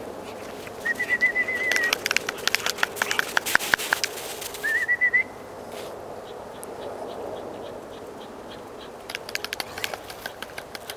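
A trilling whistle blown twice, each blast about a second long, near one and five seconds in. Between and after them come crunching footsteps in snow.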